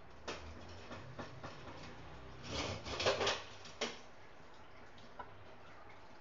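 Kitchen handling sounds as a small plastic cup of zarda food colour is tipped and moved over rice in an aluminium pot: a few light clicks, then a short burst of rustling and clicking about two and a half seconds in.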